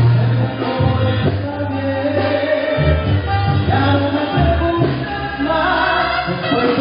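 Mexican banda music played live and loud: a brass-and-wind band with deep bass notes changing every second or so beneath the melody, and some singing.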